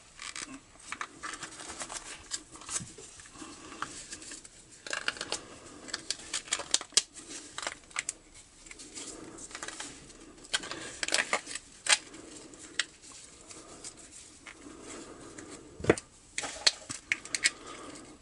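Irregular small clicks, scrapes and taps as a coiled steel return spring is worked by hand into a chainsaw starter's plastic ratchet pulley, with a sharper knock near the end.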